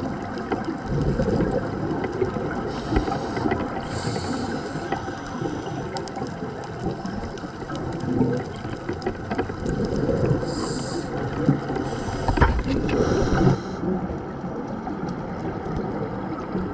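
Scuba regulator breathing heard underwater: a hissing draw of air every few seconds and the bubbling rush of exhaled bubbles, loudest about three-quarters of the way through, over a steady muffled underwater noise.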